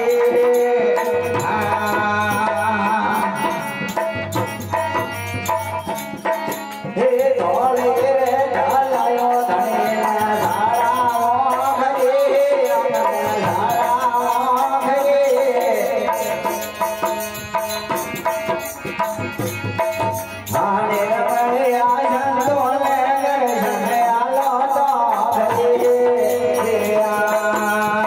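Gujarati devotional bhajan: a man singing a long, bending melodic line to harmonium and a plucked tambura drone, with hand percussion keeping a steady beat.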